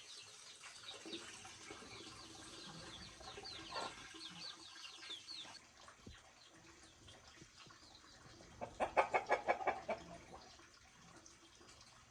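Chickens: high, falling peeping calls repeated through the first half, then a quick run of about nine clucks a little under nine seconds in, the loudest part.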